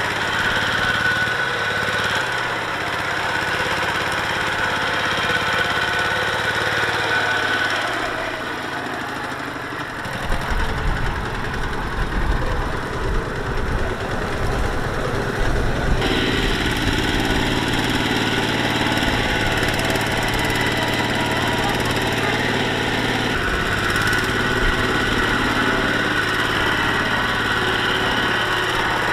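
Single-cylinder diesel engine of a two-wheel walking tractor running hard while pulling a loaded rice trailer through deep mud. The engine note changes abruptly several times as different shots are cut together.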